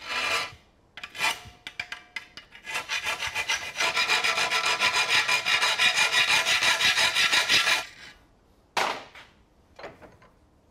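Hand file rasping along the edge of a steel Citroën 2CV A-pillar panel clamped in a vice, shaping it to fit the sill. A few separate strokes come first, then a quick even run of about five strokes a second for several seconds, then two more single strokes near the end.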